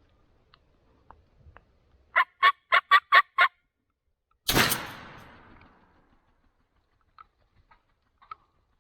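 A wild turkey call of six loud, evenly spaced notes in quick succession. About a second later comes a single shotgun blast that echoes away.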